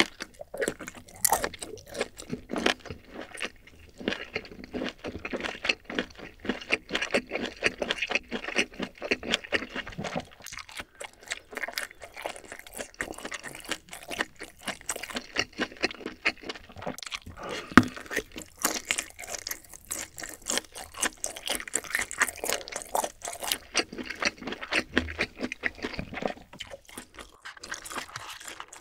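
Close-miked chewing of a large kielbasa-style sausage: a dense, continuous run of wet mouth clicks and smacks, with one sharp, louder click about two-thirds of the way through.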